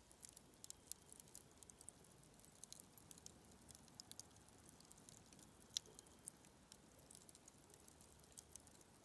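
Dying campfire crackling: faint, irregular small pops and ticks from the burning-down wood, with one sharper pop about six seconds in.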